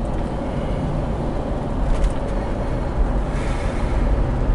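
Steady low road and engine rumble inside the cabin of a 1996 Buick Roadmaster Estate wagon on the move. A passing bus adds a brief rush of noise near the end.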